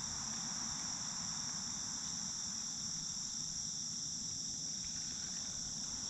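Steady, high-pitched insect chorus with a faint low rumble underneath.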